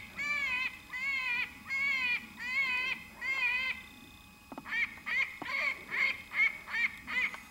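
Predator call sounding a repeated wailing distress cry: a run of evenly spaced cries, each under half a second, then after a short pause a quicker run of shorter cries, used to lure coyotes.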